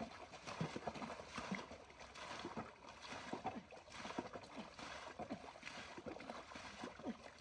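Faint, irregular splashing of water as it is bailed out of a wooden boat by hand and a pot is rinsed in the shallow water.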